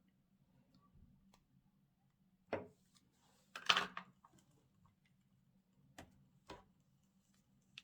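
Slime being mixed by hand: a few scattered sticky clicks and pops, the loudest a short burst near the middle, over a faint low hum.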